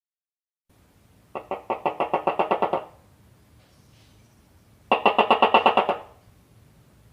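Gecko chirping: two quick bouts of rapid clicking chirps, about ten a second, the second bout starting about five seconds in.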